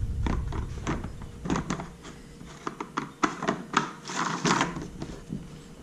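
Plastic fuel-tank cap and container being handled and fitted together: a scatter of sharp clicks and short scraping rubs.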